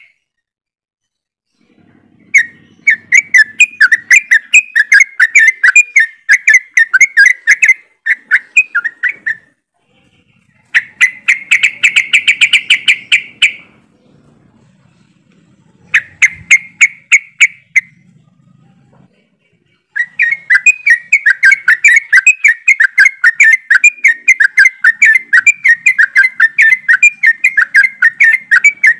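A group of sooty-headed bulbuls (trucukan) singing: rapid, loud chattering notes in phrases of a few seconds with short pauses between, becoming an unbroken stretch of song for the last third.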